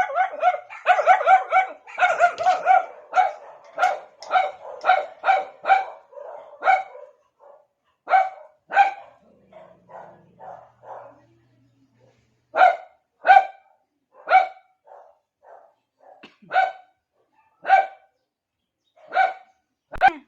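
Small Shih Tzu barking to call another dog's attention: a quick run of sharp, high barks, then slower single barks about a second apart with quieter ones in between.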